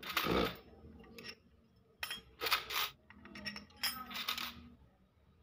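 Steel wheel spokes clinking against one another and against a motorcycle drum hub's flange as they are threaded into its spoke holes: a handful of separate light metallic clinks and rattles.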